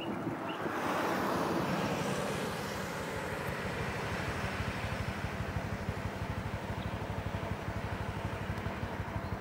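A lorry's engine running as it drives slowly along the road past the camera, with an even, steady engine beat. Road noise swells about a second in.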